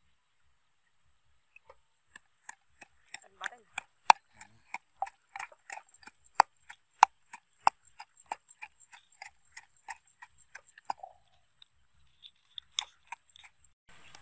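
Wooden pestle pounding in a mortar: sharp ringing knocks at about three strokes a second, with a pause about eleven seconds in and a few more strokes near the end.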